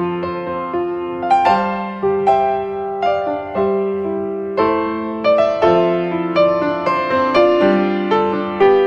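Background piano music: a gentle melody of notes struck one after another, each ringing out over held lower notes.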